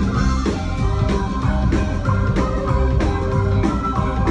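Live rock band playing loudly: a keyboard solo over drums and bass, with drum hits at a steady beat.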